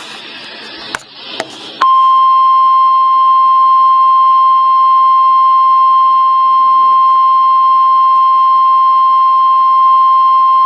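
A weather radio's hiss with two clicks, then, about two seconds in, the NOAA Weather Radio 1050 Hz warning alarm tone: one loud, steady, unbroken high beep. It is the attention signal that an emergency alert, here a tornado warning, is about to be read.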